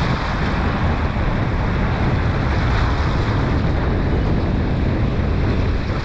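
Sea waves breaking and washing through rounded boulders on a rocky shore, a steady loud surge of surf, with wind buffeting the microphone as a deep rumble underneath.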